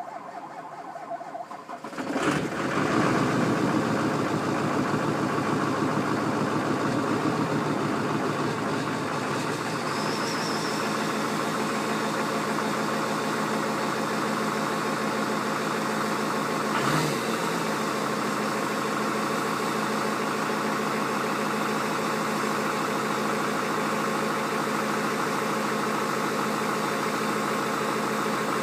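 LBZ Duramax 6.6-litre V8 turbo-diesel in a 2007 2500HD pickup being cold-started at −4 °F: it cranks for about two seconds, catches, and settles into a steady idle. A single brief knock sounds partway through.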